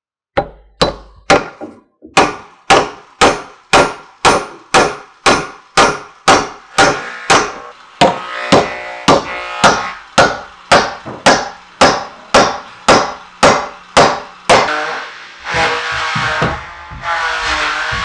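A hatchet chopping along the edge of a wooden board, hewing it down with sharp, even strikes about two a second. Background music joins about halfway through. Near the end the strikes stop and two longer, noisier sounds follow.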